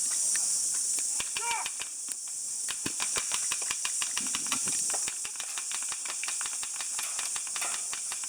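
A steady, high-pitched buzzing insect chorus, with many irregular sharp clicks and snaps scattered through it.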